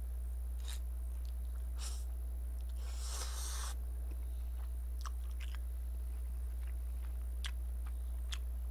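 Close-miked mouth sounds of eating Chapagetti black-bean instant noodles: scattered wet smacks and chewing clicks, with a short slurp about three seconds in, over a steady low hum.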